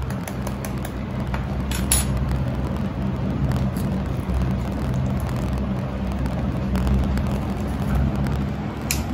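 An egg being cracked and beaten in a bowl: scattered light clicks and taps, a sharper one about two seconds in, over a steady low hum that is the loudest sound throughout.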